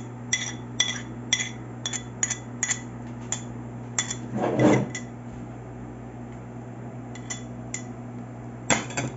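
A spoon clinking and tapping against a bowl, about two sharp ringing clinks a second at first, then a brief scraping sound near the middle and a few more clinks near the end, as chopped spring onion is added to the filling mixture.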